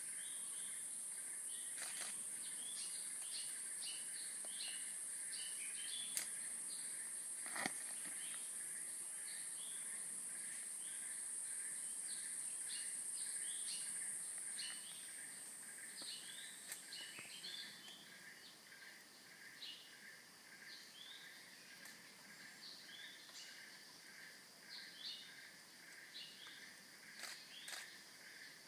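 Tropical forest ambience. A steady high-pitched insect drone fades away about halfway through, while many short bird chirps and calls go on throughout over a softer steady insect hum. One sharp knock comes about a quarter of the way in.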